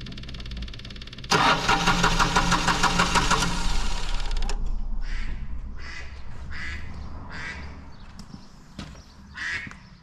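Mini digger's 1.3-litre diesel engine running, getting louder about a second in and then dying away over the next few seconds as it runs out of diesel after the fuel filters were changed. From about halfway, a duck quacks repeatedly.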